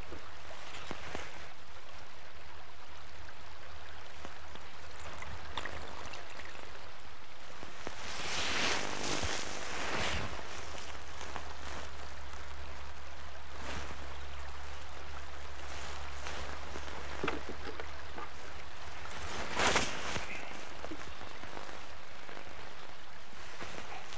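Steady rush of a fast-flowing river current, with brief louder noises about eight to ten seconds in and again near twenty seconds.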